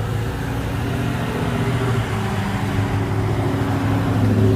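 Gas pump running while fuel flows through the nozzle into a car's tank: a steady hum with higher tones that slowly rise in pitch as the tank fills.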